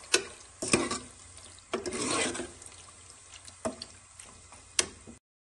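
Metal spoon stirring chicken pieces coated in yogurt and tikka masala in an aluminium pot: wet scraping strokes with several sharp clinks of the spoon against the pot. The sound cuts off abruptly about five seconds in.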